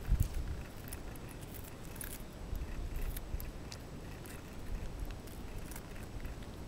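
Shiba inu puppy gnawing and chewing raw bitter melon, with scattered short crunches and clicks of teeth on the bumpy rind. A low thump comes right at the start.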